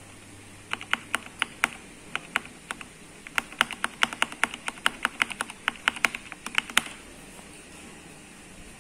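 Typing on a mechanical keyboard: a run of irregular key clicks, several a second, that stops about seven seconds in.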